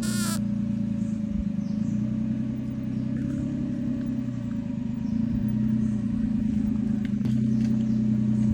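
An engine running steadily throughout, its pitch swelling slightly partway through. A brief high squeak sounds right at the start.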